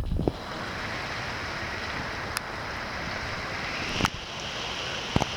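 Heavy rain pouring down in a steady hiss, with a few brief knocks.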